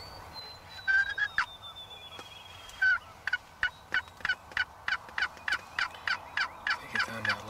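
Wild turkey calling: a few loud notes, then an even run of short notes at about three a second. A thin, slowly falling whistle sounds under the first few seconds.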